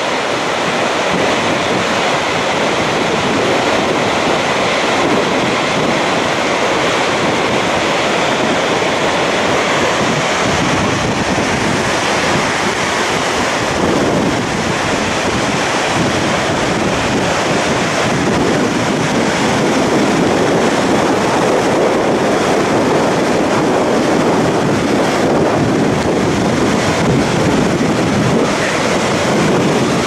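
A tall waterfall thundering close by, with the cascading stream below it, in a steady dense rush of water. Strong gusting wind and spray buffet the microphone throughout.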